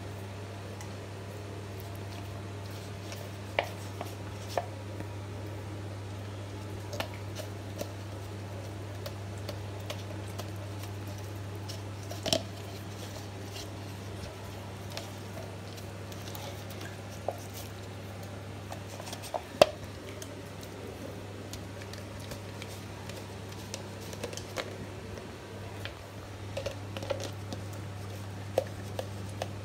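Long-haired German Shepherd licking yogurt out of a plastic yogurt pot, wet licking and smacking with now and then a sharp click as its tongue or teeth knock the plastic cup. A steady low hum lies under it.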